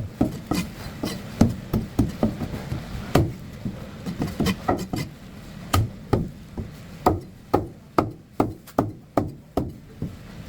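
Knife or cleaver chopping through desi magur (walking catfish) on a wooden block: a run of sharp chops, uneven at first, then a steady beat of about two a second near the end.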